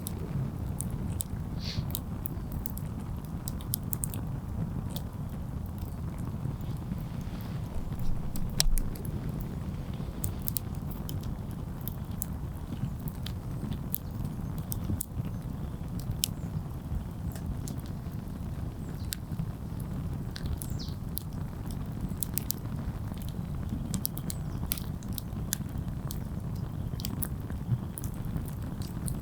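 Wood campfire burning, crackling with many sharp, irregular pops and snaps over a steady low rush.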